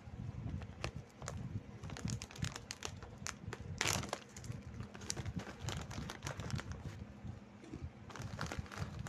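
Plastic snack-chip bag crinkling as it is handled, with irregular crackles throughout and a louder crinkle about four seconds in.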